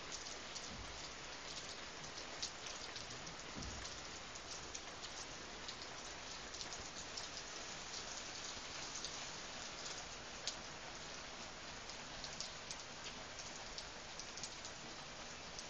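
Steady rain falling on garden foliage: a constant hiss with many single drops tapping close by.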